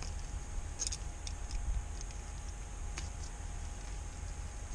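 A few light, scattered clicks and taps from pliers working a hook out of a landed catfish's mouth, over a steady low rumble.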